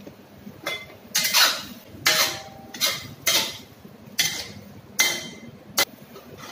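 Metal spatula scraping and clanking against a stainless-steel wok while stir-frying vegetables in sauce: about eight strokes in quick, uneven succession, some with a short metallic ring.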